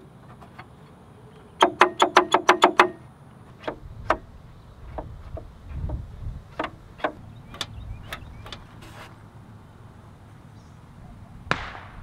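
Hands working the plastic body panels of a Vespa LX scooter: a quick run of about nine sharp clicks, then scattered clicks and knocks, and a short scrape near the end.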